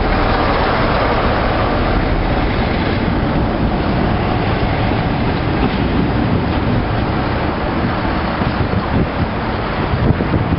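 Class 47 diesel locomotive's Sulzer twelve-cylinder engine running under power as it moves off close by, loudest at the start. Later, another Class 47 is approaching along the line.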